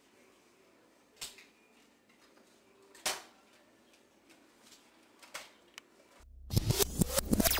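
A quiet room with a few soft, short knocks. About six seconds in, an electronic transition effect cuts in and swells: rapid clicks and sweeping synthesizer tones over a steady low hum.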